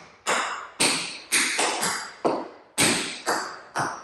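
Metal taps on tap shoes striking the floor in a steady run of about eight sharp taps, roughly two a second, each ringing briefly as it fades: a tap dancer working through the reversed riffs.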